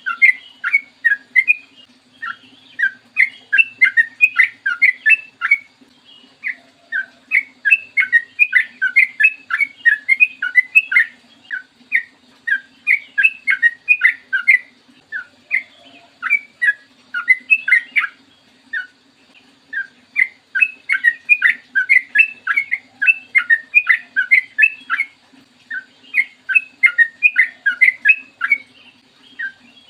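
Yellow-vented bulbul singing fast, bubbly strings of short notes in long runs, with brief pauses now and then.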